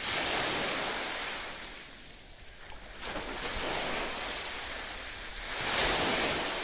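Sea waves washing in: a rushing noise that swells and ebbs about three times.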